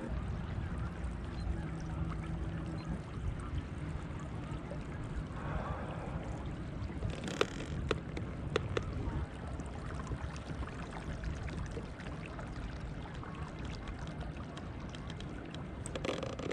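Motorized fishing kayak under way while trolling: a steady low rumble of the drive and water along the hull. A few sharp clicks come about seven to nine seconds in.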